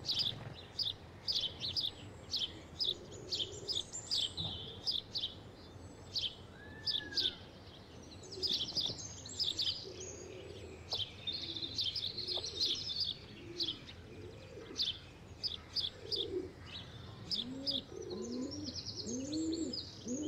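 Small birds chirping over and over in quick, high notes, with a pigeon cooing several low, rising-and-falling notes near the end.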